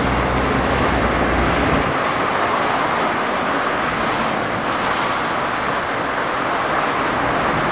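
Steady city street traffic noise from passing cars and vehicles, with a low rumble that drops away about two seconds in.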